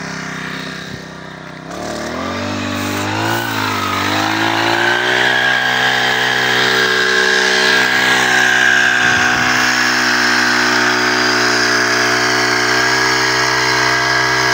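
Small petrol engine of a motorized backpack crop sprayer rising in pitch about two seconds in, then running steadily at high speed as it drives the pump and the lance sprays.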